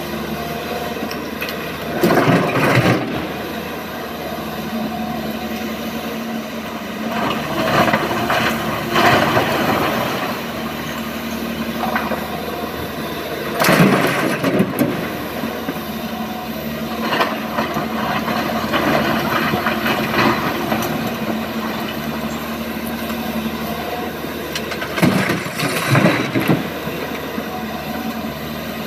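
Crawler excavator working with its diesel engine running steadily while loads of broken rock are dumped from its bucket into a steel dump-truck body, clattering loudly several times.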